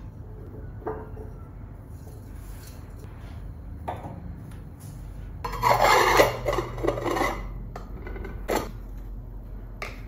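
Decorations being set down and shifted on a terrazzo bathroom counter: a few light knocks, and about halfway a second or two of rough scraping as a chrome stand mirror's base is slid into place on the stone.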